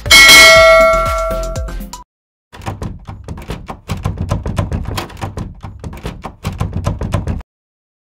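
A notification-bell chime from a subscribe-button animation rings once and fades over about two seconds. After a short gap comes a rapid, uneven run of typewriter-style clicks as on-screen text types itself out, stopping abruptly near the end.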